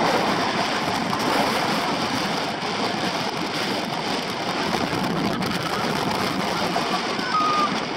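Expedition Everest's steel roller coaster train running fast along the track: a steady rush of wheel and track noise mixed with wind.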